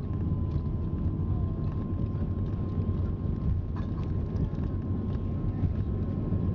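Lisunov Li-2's nine-cylinder Shvetsov ASh-62IR radial engines running at low power while the aircraft taxis, a steady deep rumble heard from inside the cabin.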